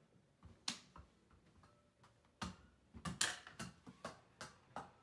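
A small basketball knocking against a mini basketball hoop's backboard, rim and the wall behind it. The sharp knocks come singly at first, then in a quicker run over the last two seconds.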